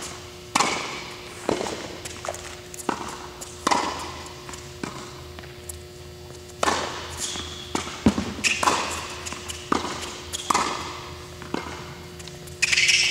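Tennis ball struck by racket strings and bouncing on an indoor hard court in a volleying drill: a sharp pop about every second, each ringing briefly in the hall's echo, over a steady low hum.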